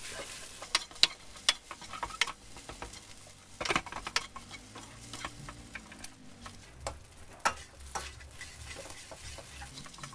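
A spatula scraping and knocking against a stainless steel wok as clumps of fried rice with egg are broken up, in quick irregular strokes over a steady sizzle of frying.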